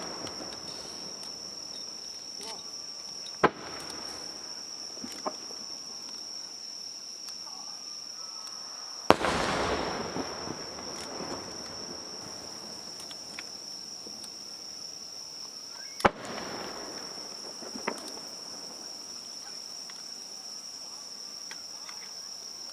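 Aerial firework shells bursting: three sharp bangs about 3.5, 9 and 16 seconds in, the middle one loudest and trailing off over a couple of seconds, with a few smaller pops between. A steady high insect drone runs underneath.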